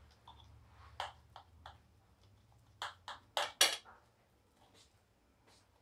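A knife blade tapping and scraping against a stainless steel plate as it cuts through soft semolina-potato dough, giving a series of sharp metallic clicks, the loudest pair about three and a half seconds in.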